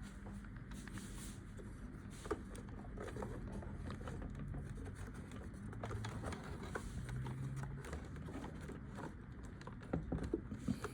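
Faint handling noises: scattered small clicks, scrapes and light knocks, with one sharper click about two seconds in and a few knocks near the end, over a low steady hum.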